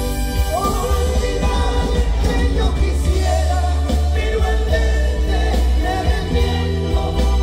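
A band playing live with a male singer, amplified through a large stage sound system, with a strong bass.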